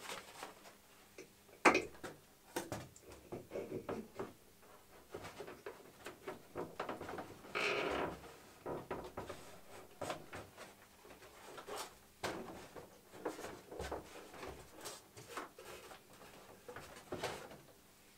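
Handling noises as a foam-skinned model aircraft wing is lifted and fitted onto the fuselage: scattered knocks, clicks and short scrapes, with a sharp click about two seconds in and a longer scraping rustle near the middle.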